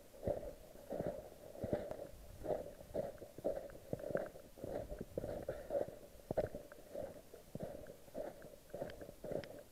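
Footsteps crunching through snow at a steady walking pace, a little under two steps a second.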